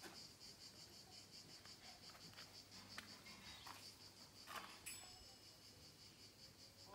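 Faint chirping of insects in summer: a steady high-pitched trill that pulses rapidly and evenly. A few faint clicks sound partway through.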